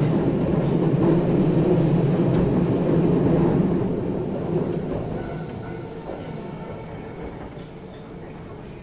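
Osaka Metro 30000 series subway train with Mitsubishi IGBT VVVF drive running through the tunnel, heard from inside the car: a loud, steady rumble of wheels on track that dies down steadily from about four seconds in.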